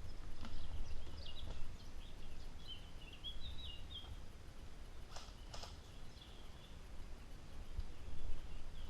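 Outdoor ambience of birds chirping over a steady low rumble, with two sharp clicks close together about five seconds in.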